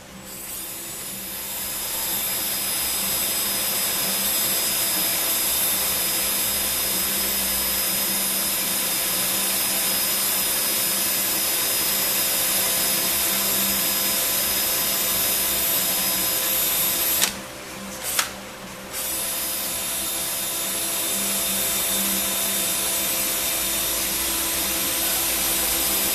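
Cordless drill running steadily as it bores an exhaust port through an aluminium 4R44E transmission valve body, using a bit that is not sharp enough. It builds up over the first couple of seconds. About two-thirds of the way through it stops for a second or so, with a click, then runs on.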